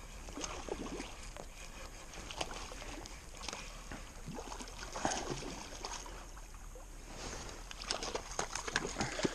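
Irregular water splashing and sloshing as a hooked rainbow trout is brought in at the water's edge, mixed with scattered small knocks and rustles of handling.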